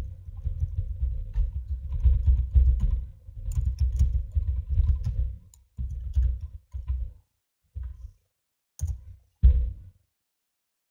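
Typing on a computer keyboard close to the microphone, the keystrokes coming as dull low thumps in quick runs, thinning out in the second half and stopping about a second before the end.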